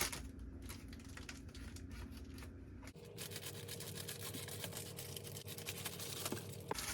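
Faint rustling, scratching and tearing of a small package being opened by hand.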